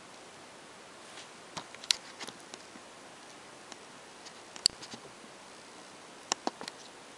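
Scattered light clicks and ticks of handling noise, from fingers shifting on a handheld iPhone, over a steady faint hiss. The sharpest click comes a little past halfway, and a quick group of three comes near the end.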